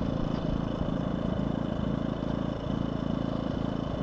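DuroMax XP2000is inverter generator running steadily at idle with no load.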